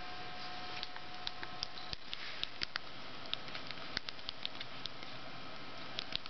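Scattered light clicks and taps over a steady hiss, with a faint steady hum in the first two seconds.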